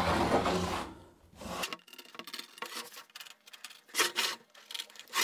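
A large OSB board being shifted and turned on a wooden workbench: a loud scrape of wood on wood in the first second, then softer rubbing, with short scrapes about four seconds in and again at the end.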